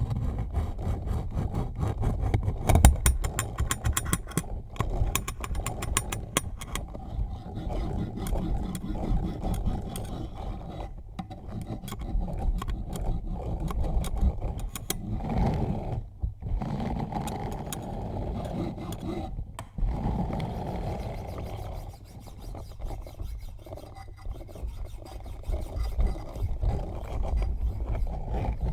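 Close-up rubbing and scraping directly on a microphone, with a heavy low rumble and, in the first several seconds, a run of rapid fine crackling clicks. The rubbing stops briefly a few times.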